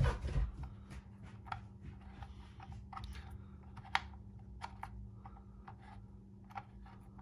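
Irregular light clicks and taps of hard polymer holster parts (QLS fork and mounting plate) and a small screw being handled and fitted together by hand, with one sharper click about four seconds in.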